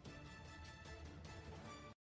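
Soft background music with held notes and a light steady pulse, cutting off abruptly near the end.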